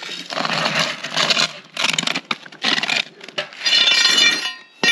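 Steel tyre iron prising and scraping a muck spreader tyre's bead over its steel rim, in four or five scraping strokes, with a sharp metallic click at the end.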